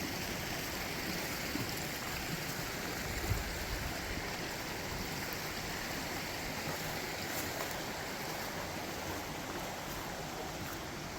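Creek water rushing steadily over rocks and small falls. There is a brief low thump about three seconds in.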